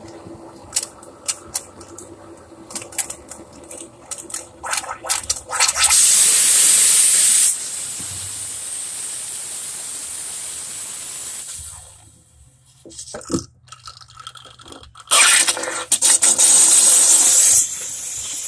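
Scattered sharp clicks and knocks, then two loud hissing spray blasts, one about six seconds in lasting roughly a second and a half and one near the end lasting about two and a half seconds, with a softer steady hiss after the first.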